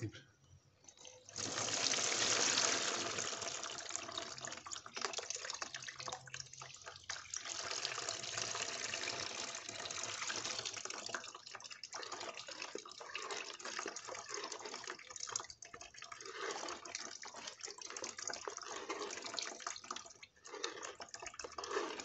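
Liquid pouring through a mesh sieve and splashing into a plastic basin as a fermented poultry-manure soak is ladled through it with a plastic dipper and strained. It starts about a second in and goes on with several short breaks between pours.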